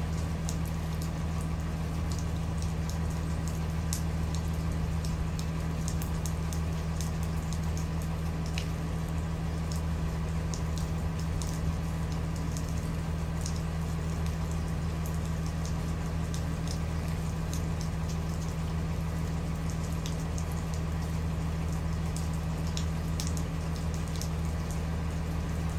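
Steady rain falling, with scattered raindrops ticking close by over a constant low hum.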